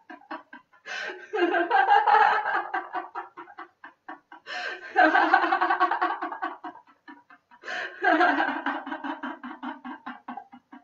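A woman laughing heartily in three long bouts of rapid 'ha-ha' pulses, each bout starting with a sharp in-breath: deliberate laughter-yoga laughter.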